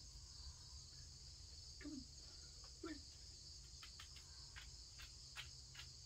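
Steady high-pitched insect chorus, faint, with a few light clicks and two brief soft low sounds about two and three seconds in.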